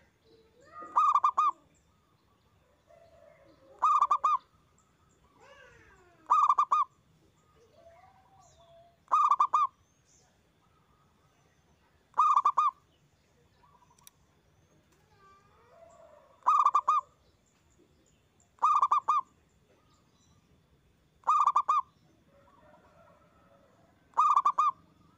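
Zebra dove (perkutut) singing loudly: nine short, pulsed coos repeated about every two to three seconds. Fainter gliding calls sound between the coos.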